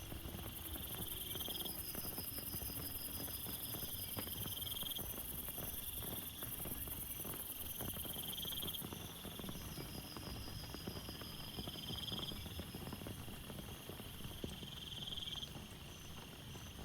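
A chorus of night insects: a trill that repeats every two to three seconds, a faster pulsing call and a steady high shrill, all layered together. Under it runs light, irregular tapping of water drops.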